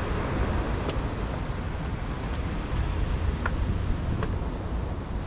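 Steady rumble of wind buffeting the microphone, with a few faint light clicks scattered through it.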